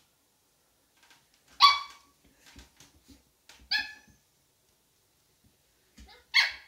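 Miniature Schnauzer puppy giving three short, high-pitched play barks about two seconds apart, the first the loudest.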